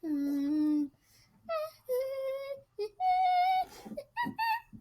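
A young person's voice singing or humming a string of long held notes without words, broken by short gaps, with quicker shorter notes near the end.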